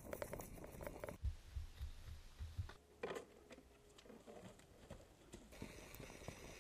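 Faint field sound of footsteps and scuffs on dry grass and stony ground as a soldier and a police dog move about, with scattered light knocks.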